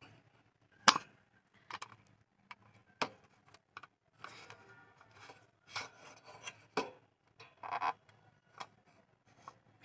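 Handling noise from craft work on a table: a scattering of sharp knocks and taps, the loudest about a second in, with short bursts of rubbing and rustling in between.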